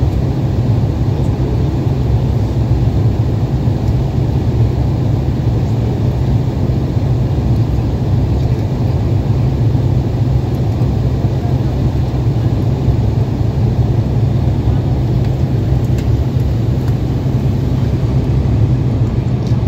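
Embraer 170 airliner cabin in flight: a steady, loud low drone of the engines and airflow, unchanging throughout.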